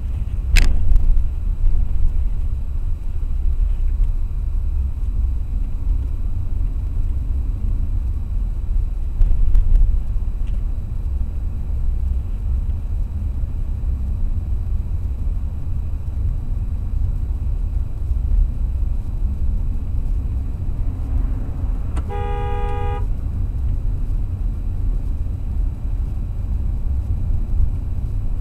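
Steady low road and engine rumble heard from inside a moving car, with a sharp click about half a second in. Later comes a single car horn blast of about a second.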